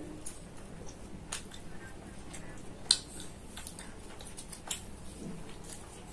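Eating sounds from kaleji (mutton liver) and roti: scattered mouth clicks and smacks while chewing, and a roti being torn by hand. One sharper click comes about three seconds in.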